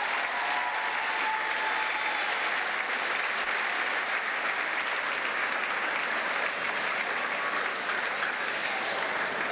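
An audience applauding steadily: many people clapping at once.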